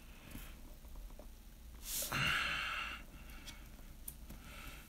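A person breathes out in a short sigh about two seconds in, over faint clicks and scratches of fingers picking tape off a cardboard game box.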